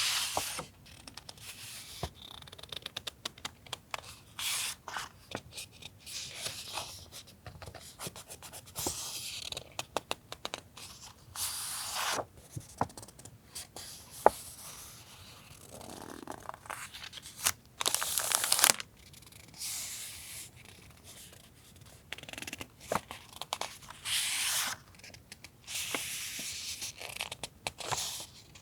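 Paper stationery being handled: sheets and packets rustling and sliding in irregular bursts, with many light taps and clicks.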